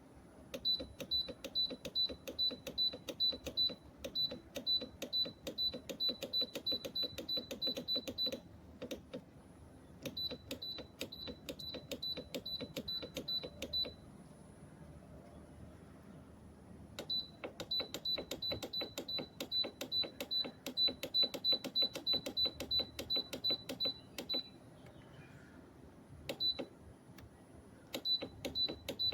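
Short, high electronic beeps in rapid runs of about four a second, stopping and starting several times, over a faint steady hum.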